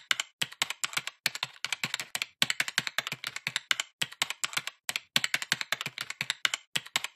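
Computer keyboard typing: a quick, uneven run of key clicks in several short bursts with brief pauses, the kind of typing sound effect laid under text appearing on screen.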